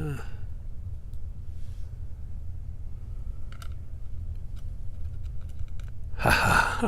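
Faint, scattered small clicks of lock pins and parts being handled over a steady low hum, then a loud breathy sigh near the end.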